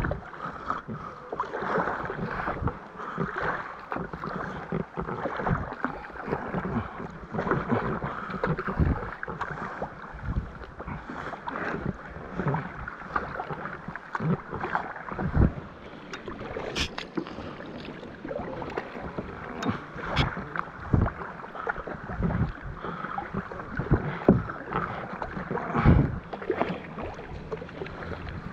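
Kayak paddling: a double-bladed paddle dipping and splashing again and again, with water sloshing against a plastic sit-on-top kayak's hull.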